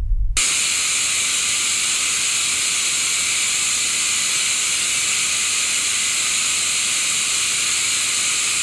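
Television static: a steady, fairly loud hiss of white noise that cuts in abruptly about half a second in, replacing a low rumble.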